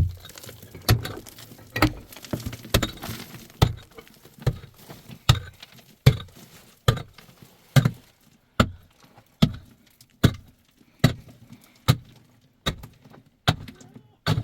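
A steady series of heavy blows, a little more than one a second: each is a sharp knock with a low thud under it.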